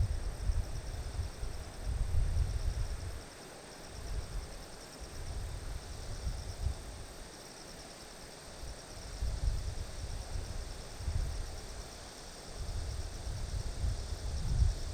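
Grass insects chirring steadily in a high, pulsing trill, with gusts of wind buffeting the microphone as low rumbles that swell and die away several times.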